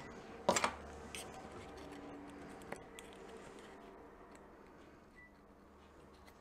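Fabric rustling and being handled at a sewing machine while piping is sewn slowly around a curved collar edge, with a sharp click about half a second in and a couple of small taps after it, over a faint steady hum.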